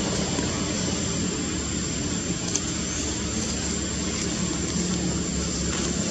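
Steady engine-like rumble with an even hiss over it and a thin, steady high tone.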